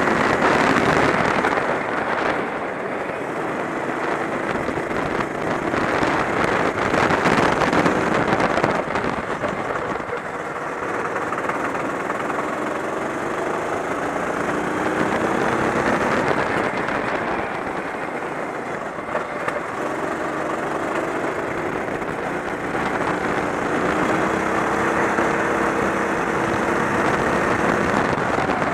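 Kart engine running under load, heard from the driver's seat, its pitch climbing several times as it picks up speed out of the corners, over a dense rush of wind and engine noise.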